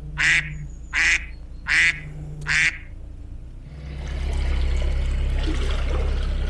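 A duck quacking four times in quick succession, short harsh calls over a steady low hum. About four seconds in, a louder steady sound swells up and holds.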